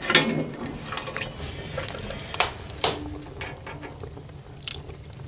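Wood crackling and popping as it burns in a wood stove, with sharp pops at irregular intervals.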